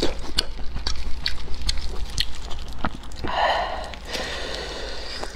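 Close-miked eating and handling sounds: sharp clicks of abalone shells being handled with plastic-gloved fingers, then a short breathy sound a little past halfway, followed by a soft noisy rustle.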